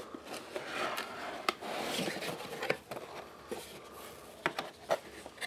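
Cardboard box being opened by hand: the lid scraping and sliding off with cardboard rustling, and several short sharp clicks and taps.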